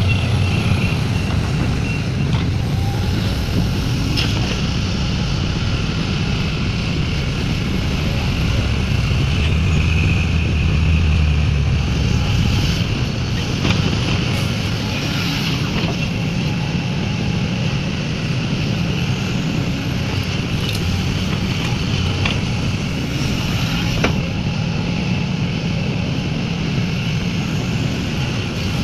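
Heavy diesel engine of a Sumitomo SH350 excavator running steadily under load, swelling for a few seconds around the middle, with a few sharp knocks.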